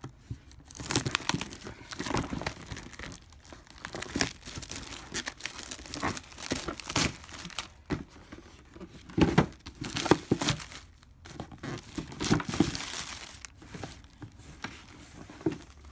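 Clear plastic wrapping crinkling and a cardboard box being handled as a boxed collectible is unpacked by hand, in many uneven crackles and rustles.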